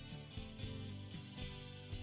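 Background music: a gentle instrumental with plucked notes starting every half second or so.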